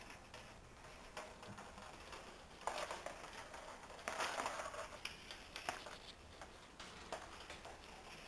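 Faint scattered light clicks and rustling of things being handled, with two short louder rustles about three and four seconds in.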